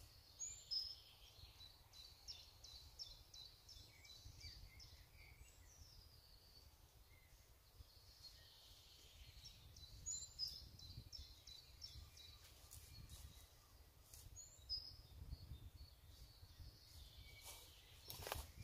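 Faint woodland birdsong: a small songbird repeats a short phrase of quick, evenly spaced high notes, about three times, over a low steady rumble. A brief rustle comes near the end.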